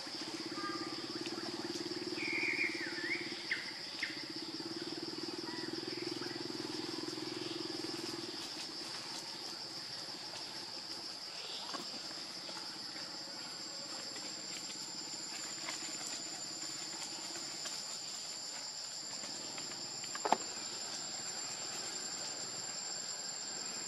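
Steady high-pitched drone of insects in the forest, with a second, thinner and higher insect whine joining about halfway through. A few short chirping calls a few seconds in and a single sharp click near the end.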